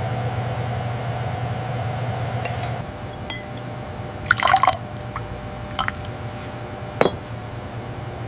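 Steady hum of factory machinery that drops in level about three seconds in, followed by a handful of sharp clinks and liquid sounds, the loudest a quick cluster about halfway through and a single clink near the end.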